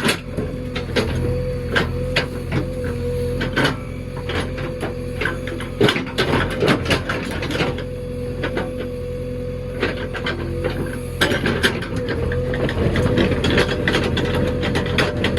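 JCB backhoe loader's diesel engine running steadily under a wavering whine, with frequent scattered knocks and clatter from the machine at work.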